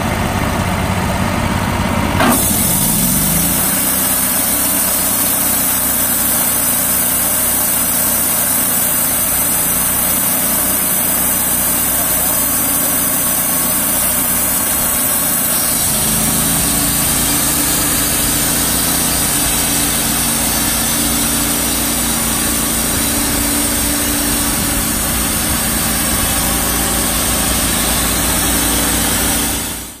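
Wood-Mizer LT35 hydraulic portable sawmill running under engine power, its band blade sawing through a log. There is a click about two seconds in, after which a high hiss joins the engine's steady running.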